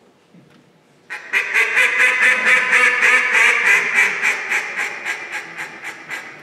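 A mallard duck call blown by a contest caller imitating a live mallard hen: about a second in, a long, rapid string of quacks at roughly four a second starts loud and gradually fades toward the end.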